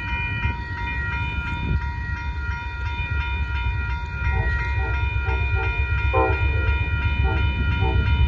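Amtrak Texas Eagle passenger train approaching with a rumble that grows louder. About halfway in, the locomotive horn starts a quick run of short toots, a horn show, with one longer blast among them. A steady ringing, likely the grade-crossing bell, sounds throughout.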